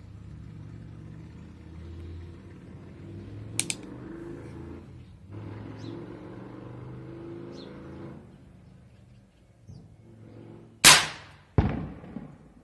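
Mendoza PK-62 break-barrel spring air pistol: a quick double click as the barrel is closed after cocking, then, well after, a loud sharp shot followed less than a second later by a second sharp crack with a short ringing tail, the pellet striking a target.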